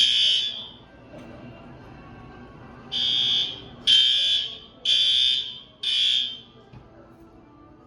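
Hotel fire alarm sounding in loud, high-pitched beeps about a second apart: one, then after a pause of about two seconds, four more. It was set off by a microwave burning in the kitchen.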